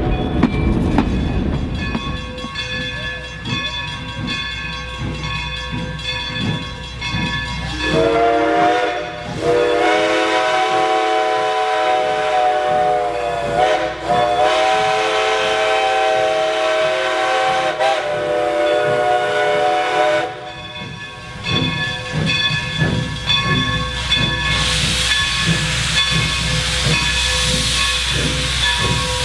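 Passenger cars rolling past for the first couple of seconds. Later, the whistle of a Baldwin 2-8-0 steam locomotive sounds a chord of several notes in a few blasts run together over about twelve seconds. Near the end, steam hisses loudly as the locomotive starts to move.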